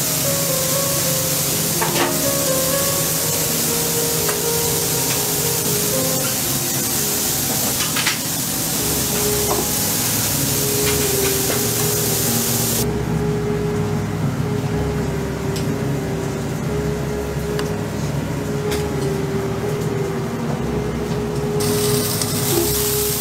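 Background music with a slow melody of held notes, over a steady hiss.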